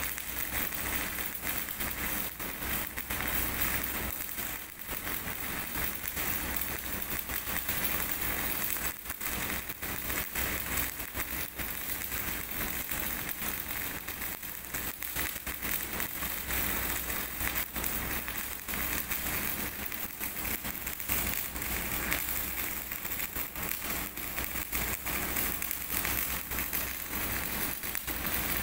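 MIG welding arc running on thick steel plate: a steady, dense crackling sizzle that carries on without a break.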